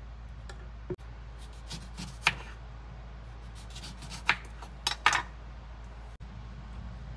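Kitchen knife slicing a lemon on a wooden cutting board: a few short, sharp knocks as the blade cuts through and meets the board, loudest about two-thirds of the way in, over a steady low hum.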